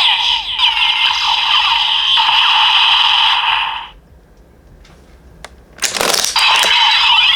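DX Revice Driver toy belt playing an electronic sound effect through its small, tinny speaker, which cuts off about four seconds in. A few faint clicks follow, then a sharp plastic clatter from the toy being handled around six seconds in, and the electronic sound starts again.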